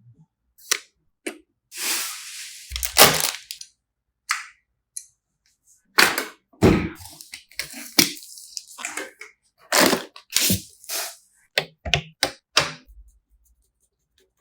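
Hands handling and fitting desktop PC parts: a string of irregular clicks and knocks of plastic and metal, with longer rustling, scraping stretches about two seconds in and again about six seconds in.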